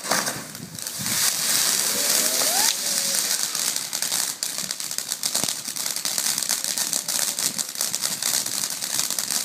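Ground firework fountain spraying crackling sparks: a steady, dense hiss of many tiny pops that starts suddenly with ignition and keeps going without a break.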